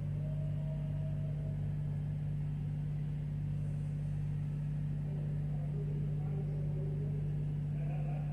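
Semi truck's diesel engine idling, a steady low hum that doesn't change.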